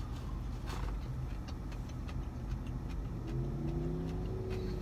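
Steady low hum of a car idling, heard from inside the cabin, with faint clicks of chewing. A low droning tone joins in for the last second and a half.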